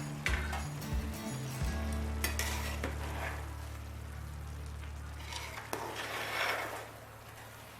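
A spoon stirring rice cooking in a pot, with several irregular scraping strokes against the pot.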